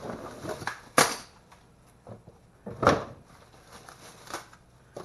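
Sander accessories being handled and set down: two sharp clacks, about a second in and just before three seconds, with lighter knocks and rustling between.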